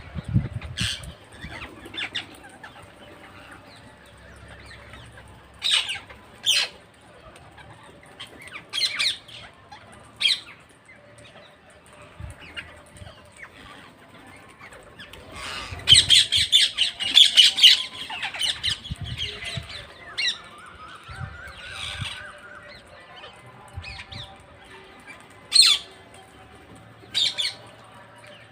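Parrots squawking: short, harsh single calls every few seconds, with a loud burst of rapid, overlapping squawks about halfway through.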